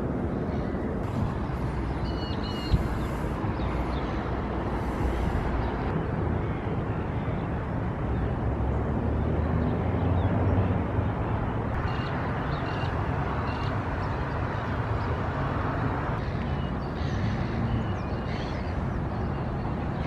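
Steady outdoor background noise dominated by a low rumble, with a few faint high chirps and a single sharp knock about three seconds in.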